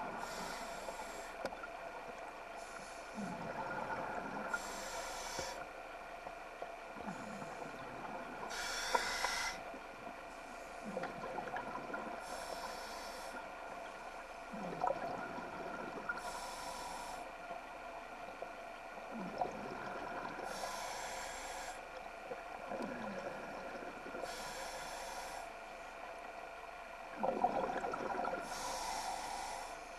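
Scuba diver breathing through a regulator underwater: a hiss with each inhalation and a rumble of bubbles with each exhalation, in a regular cycle about every four seconds, over a steady hum.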